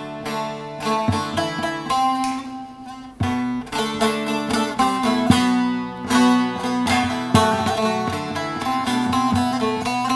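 Solo bağlama (Turkish long-necked lute) playing a Turkish folk tune in a quick run of plucked and strummed notes.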